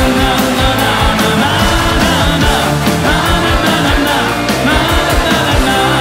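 Rock band playing live, with a male lead singer's voice over a steady drum beat and amplified instruments.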